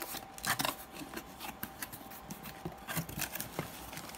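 Cardboard box flaps and packaging handled by hand: an irregular series of short scrapes, rustles and light taps as the box is opened.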